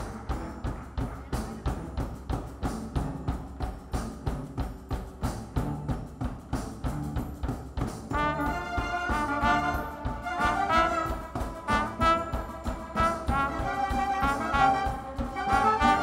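Youth orchestra playing: a steady pulsing accompaniment with low bass notes, joined about halfway in by a fuller melody line.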